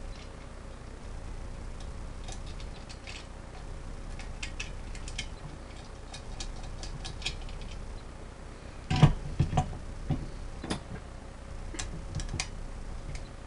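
Small metal clicks and ticks of bolts, washers and a nut being handled and fitted while a small air compressor is bolted onto its tank mounts, with a few louder knocks of metal on metal about nine to eleven seconds in.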